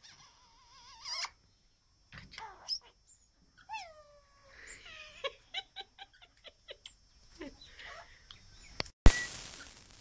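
Male Australian king parrot chattering: wavering whistles, chirps and downward-sliding squeaks, then a quick run of short clicking notes, about five a second, in the middle. Near the end, a loud bump with a rustle.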